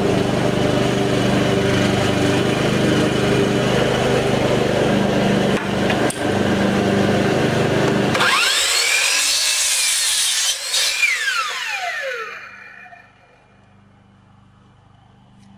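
Electric compound miter saw running at speed for about eight seconds, then cutting an angled end off a 2x4 spindle blank. The cut is followed by a whine that falls in pitch as the blade winds down, and the last few seconds are quiet.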